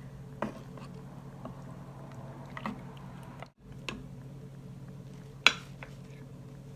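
Utensils clinking and knocking against a serving plate as food is placed on it: a handful of separate clicks, the sharpest about five and a half seconds in, over a steady low hum.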